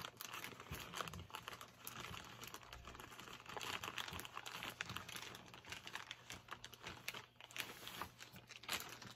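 Plastic wrapping on a pack of comic books being torn open and crinkled by hand: a run of rustles and small crackles that dies away near the end.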